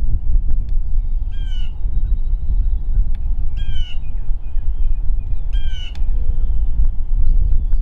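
Crow cawing three times, evenly spaced about two seconds apart, over a steady low rumble.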